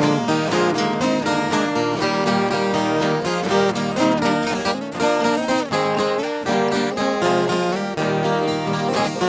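Viola caipira music with plucked melody notes over a strummed accompaniment, playing an instrumental passage of a moda sertaneja with no singing.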